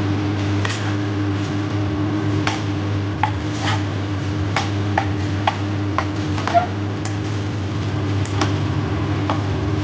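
Spatula clicking and scraping against a nonstick wok as fried rice with corn is stir-fried and tossed, in irregular taps over a steady low hum.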